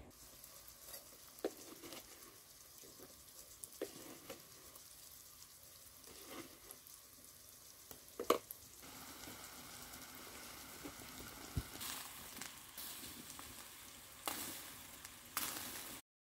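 Anchovies frying in oil in a pan, a faint steady sizzle that grows a little stronger partway through. Scattered light clicks and knocks of kitchen utensils sound over it, with one sharper clink about eight seconds in.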